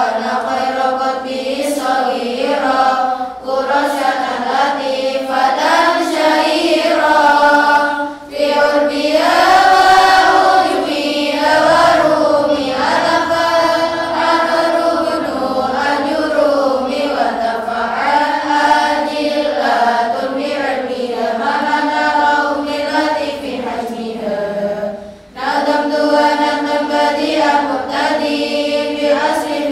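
A large group of young women chanting Arabic verse in unison (lalaran), a sung melodic recitation with short breaks for breath about 8 and 25 seconds in.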